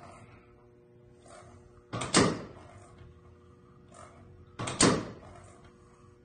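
Pneumatic cylinder of a pendulum-driven permanent-magnet generator firing: two short, loud bursts about two seconds in and again nearly three seconds later, each a brief onset followed by a louder rush. A faint steady hum lies underneath.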